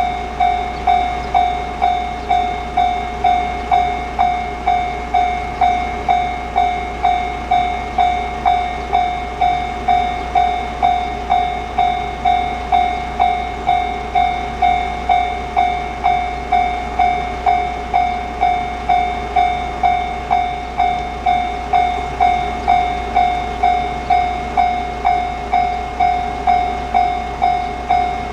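Japanese railway level crossing alarm ringing, a bright dinging tone repeated evenly a little under two times a second: the crossing's warning that a train is approaching.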